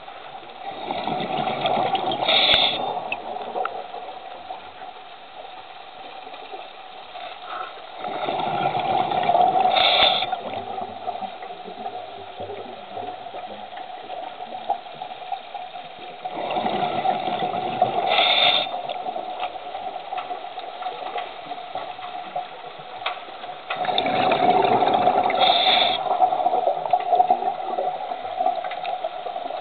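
Scuba diver breathing through a regulator underwater: four breaths about eight seconds apart, each a rush of exhaled bubbles ending in a short hiss, over a steady hum.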